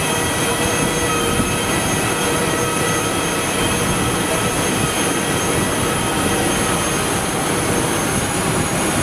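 Aircraft turbine running steadily: a loud, unchanging whine made of several high steady tones over continuous noise.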